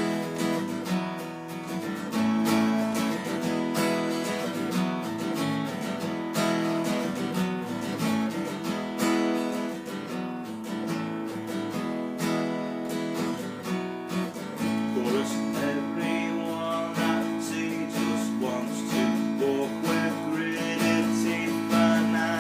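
Acoustic guitar strummed steadily at a quick pace, with chord changes.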